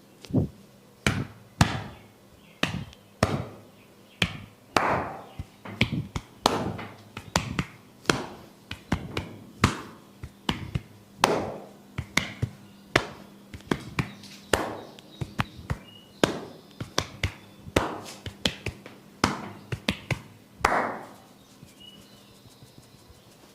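Tok sen massage: a wooden mallet striking a wooden stick held against the body, a run of sharp wooden knocks at about one to two a second, some ringing briefly. The tapping stops near the end.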